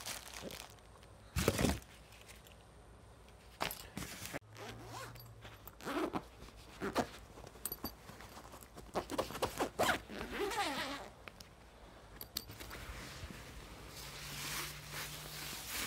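A zipper on a padded guitar gig bag being pulled open in several quick rasping runs, among knocks of handling. Soft rustling of fabric and plastic wrapping follows near the end.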